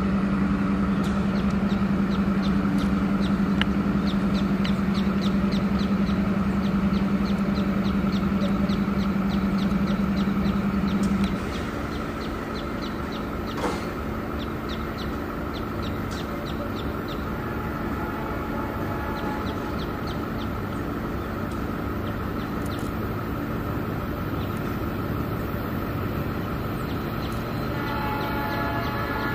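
An engine idling with a steady low hum that cuts off abruptly about eleven seconds in, with birds chirping repeatedly over it.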